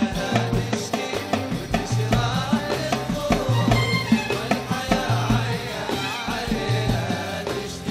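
A live Arabic orchestra with a violin section playing a Gulf song's melody over a steady repeating beat.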